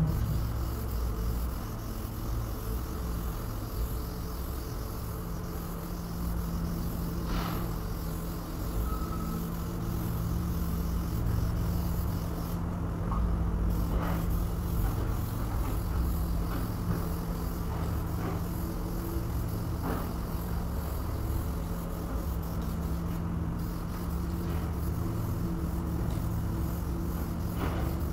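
Steady low machine hum with a constant low drone, and a few faint ticks and light scrapes over it.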